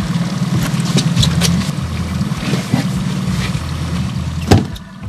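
Boat motor running under way on the water, with scattered splashes and clatter and one sharp knock about four and a half seconds in.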